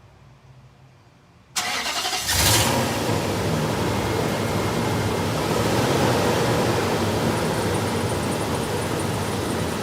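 2005 Nissan Titan V8 engine starting about one and a half seconds in, catching with a brief surge and then running steadily.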